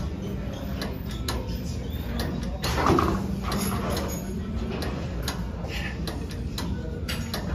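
Gym background noise: a steady low hum with scattered clicks and knocks, indistinct voices, and a louder sound about three seconds in.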